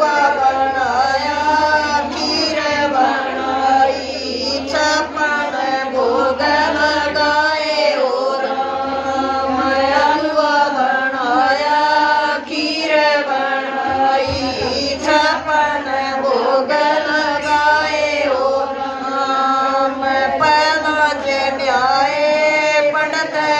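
A group of women singing a Haryanvi devotional folk song (bhajan) together in a chanted, repeating melody, with no instruments.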